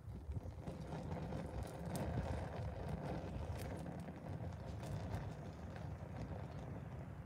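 Small flames burning on a plastic alarm clock's casing, with scattered faint crackles over a low, fluttering rumble.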